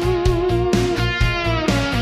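Music led by a sustained electric guitar over a steady beat.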